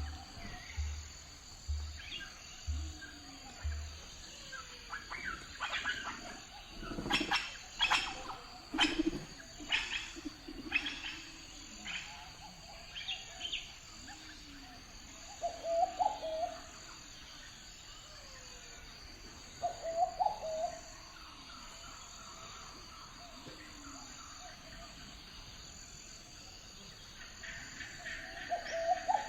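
Birds chirping and calling: a busy run of quick chirps in the first half, then sparser, with short lower-pitched calls every few seconds over a steady faint background.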